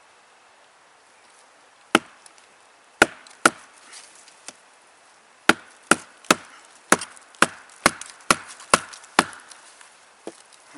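Wooden baton striking the spine of a Bark River Sahara knife (A2 steel) to split a sapling lengthwise: about a dozen sharp wooden knocks, three spaced ones first, then a steady run of about two a second.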